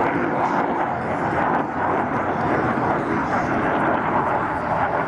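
MiG-29 fighter's twin RD-33 turbofan jet engines in display flight overhead: a loud, steady jet noise.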